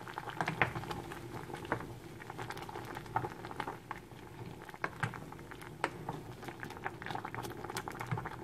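Pot of zucchini soup at a rolling boil, the water bubbling steadily with many small, irregular pops.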